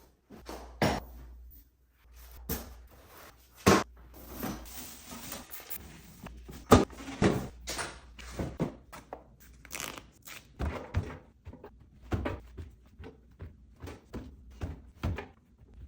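Food containers and packages being set down and arranged in a refrigerator: a run of irregular knocks and clunks, with a stretch of rustling about four seconds in.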